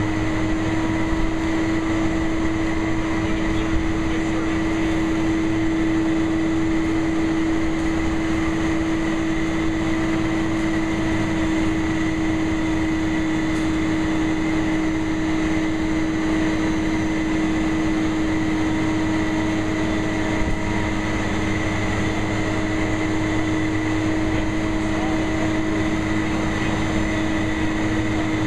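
Crane engine running steadily with a constant whine while the crane hoists a heavy load.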